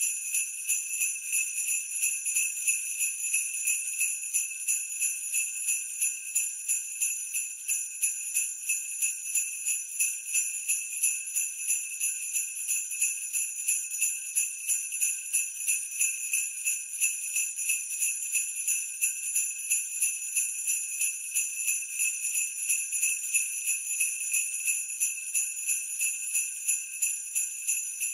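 Sleigh bells jingling in a steady, even rhythm of about three shakes a second, like the bells on a reindeer harness.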